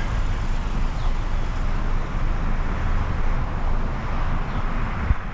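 Can-Am Ryker Rally three-wheeler's engine running steadily at low speed under even wind noise on the microphone, with a brief low thump near the end.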